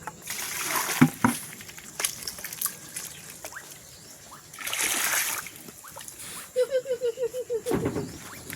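Water splashing and sloshing in two short bursts, with a few knocks. Near the end a run of quick, repeated calls from poultry.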